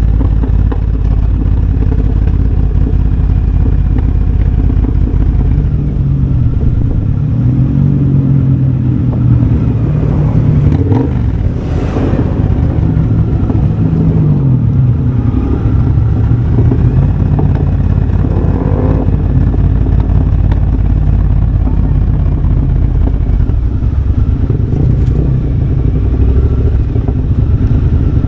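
Triumph Bobber's 1200 cc parallel-twin engine running through a de-catted X-pipe and Motone shorty exhaust on the move. The engine note rises and falls several times as the bike accelerates and eases off.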